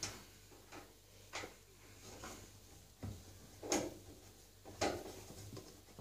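Plastic detergent dispenser drawer of a washing machine being slid and handled: a handful of separate light knocks and clicks spread over a few seconds.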